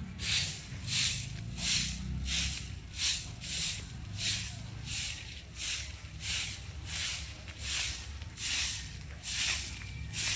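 Rhythmic swishing strokes, about three every two seconds, evenly paced, over a low steady rumble.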